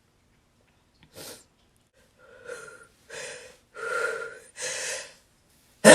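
A person's hitching, gasping inhales building up to a sneeze: a short breath about a second in, then four quick gasps growing louder, and the sneeze bursting out at the very end.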